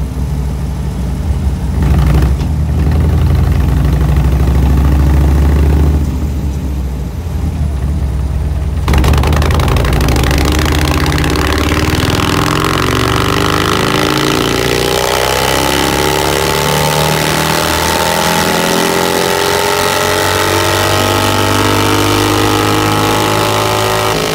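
Harley-Davidson Dyna Street Bob V-twin running on a chassis dynamometer for a remap. It revs with a heavy rumble for the first several seconds. Then, about nine seconds in, the rear wheel drives the dyno roller and a loud rushing noise joins the engine, which climbs slowly and steadily in pitch through a long pull in gear.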